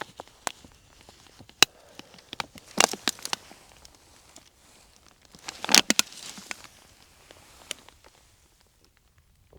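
Scattered crunches and sharp clicks in a few short bursts, the loudest about three and six seconds in, dying away after about eight seconds.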